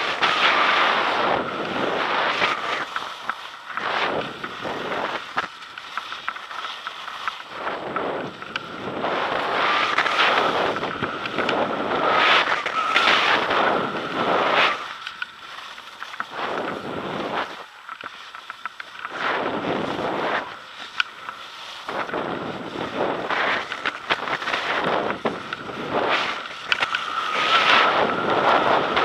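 Wind buffeting the microphone of a downhill skier, mixed with the hiss and scrape of skis on packed snow. It swells and fades every couple of seconds, with each turn.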